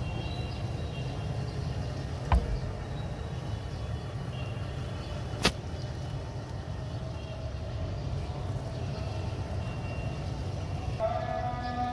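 Steady low rumble of city street traffic in the background, with two sharp clicks about three seconds apart. A held pitched tone starts near the end.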